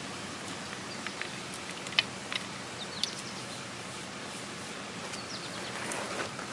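Steady outdoor background hiss with a few short, high chirps and a sharp click about two seconds in.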